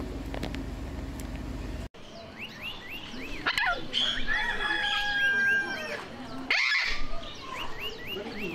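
Birds chirping and whistling: quick, repeated rising chirps, a few held whistles and louder squawks. Before them, a steady low hum cuts off abruptly about two seconds in.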